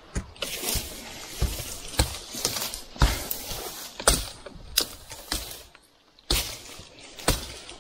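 Machete chopping through undergrowth, about ten sharp strikes half a second to a second apart, with rustling and crackling of cut foliage between them and a short pause near six seconds in: the brush is being slashed to clear ground.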